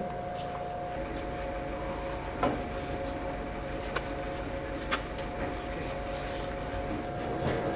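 A steady machine hum over a low rumble, broken by three sharp knocks, the loudest about two and a half seconds in.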